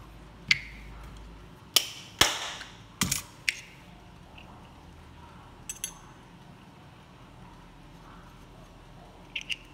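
Brass mainspring barrels from an ODO clock movement being handled and set down on the workbench: a series of sharp metallic clinks and knocks. They are bunched in the first few seconds, one with a short ring, and a couple of lighter taps come later.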